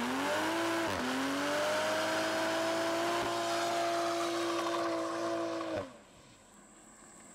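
Toyota GR Supra doing a burnout: the engine revs up, dips for a moment about a second in, then is held at steady high revs with the rear tyres spinning and squealing. The engine drops away near the end.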